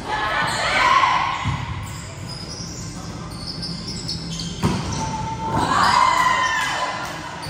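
Volleyball play on a hard gym court: the ball is struck with sharp thuds a couple of times, and two bursts of high squeaking bend in pitch, one about a second in and a longer one near the end. These fit sneakers skidding on the floor.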